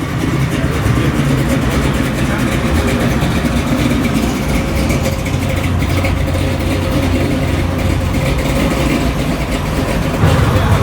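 Car engine running close by, a steady low rumble with no clear revving.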